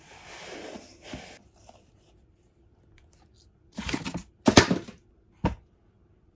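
Packaging being handled: a soft rustle of a non-woven fabric dust bag against a cardboard box, then loud crinkling bursts about four seconds in and one short one near the end.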